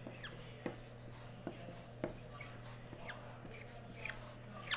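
Clicks and short squeaks of a new Sharpie marker being handled in the fingers. There are about six sharp clicks, roughly one a second, with brief squeaks between them.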